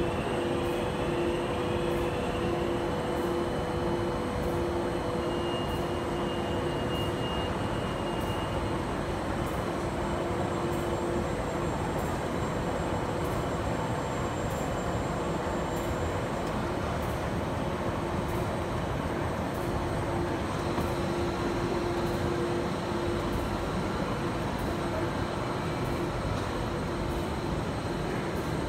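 E-Print digital label press with Domino K600i inkjet print heads running: a steady mechanical whir with a constant hum as the label web moves through it.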